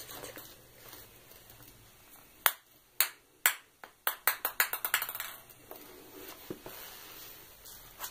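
Plastic ping-pong ball bouncing on a tile floor: three sharp clicks about half a second apart, then a quickening run of bounces that fades out within about a second as the ball settles.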